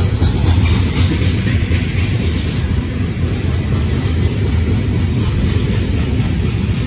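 Freight cars rolling past on the track: a steady, loud rumble of steel wheels on rail from covered hoppers and tank cars.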